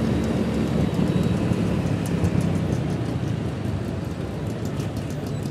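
Motorbike riding in traffic: wind rushing over the phone microphone with the engine and road noise beneath it.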